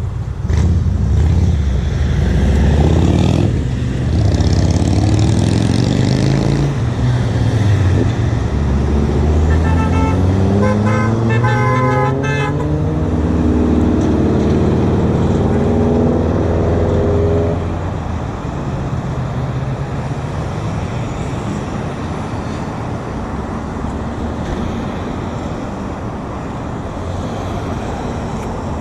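Roadside traffic: a passing vehicle's engine runs loud and climbs in pitch in steps as it accelerates, then fades into steady road noise a little past halfway. A car horn gives several short honks about ten to twelve seconds in.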